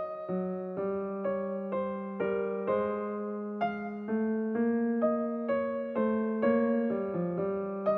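Background music played on piano or electric piano: gentle chords and melody notes struck about twice a second over a sustained bass note.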